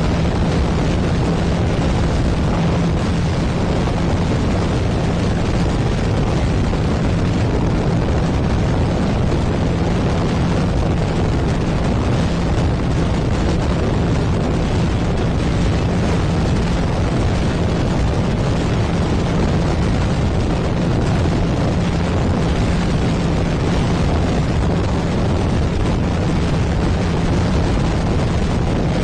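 Heavy wind buffeting on the microphone of a motorcycle running flat out at top speed. The engine's steady drone sits underneath at a constant pitch.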